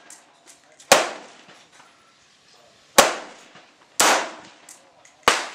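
Four gunshots at uneven intervals: about a second in, at three and four seconds, and again near the end, each sharp crack trailing off in a short echo.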